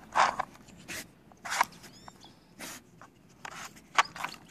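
Dog sniffing at a plastic treat puzzle while searching for hidden treats: about six short, noisy sniffs, irregularly spaced.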